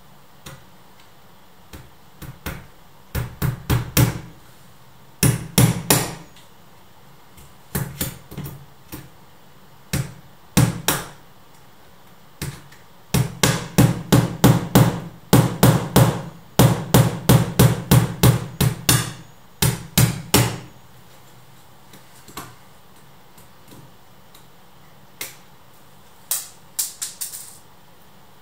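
Hammer blows on a door in short, quick runs of several strikes, with pauses between them and a long, busy run of blows about halfway through.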